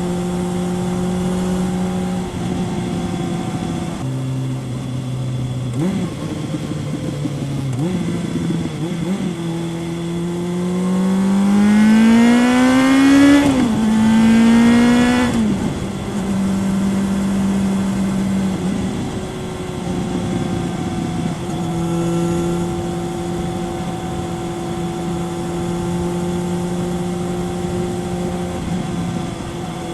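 Kawasaki ZRX 1100 inline-four motorcycle engine through a Yoshimura exhaust, heard from the rider's seat while riding. It runs steadily and drops to a lower note, with two quick throttle blips around 6 and 8 seconds in. It then pulls hard with a rising pitch, loudest around 12 to 13 seconds, through one gear change, rolls off near 15 seconds and settles back to a steady cruise.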